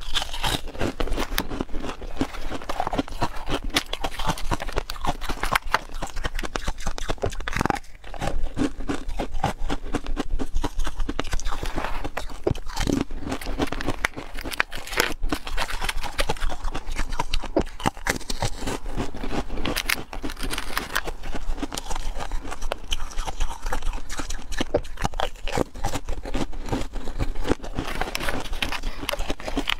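Close-up crunching and chewing of hard frozen pieces bitten off and ground between the teeth, with dense irregular crackling throughout, mixed with the scraping and crinkling of the thin plastic ice tray as pieces are pressed out of it.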